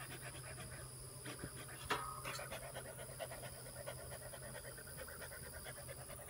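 Bee smoker's bellows being pumped, a run of quick puffs of air, with one metallic clink about two seconds in.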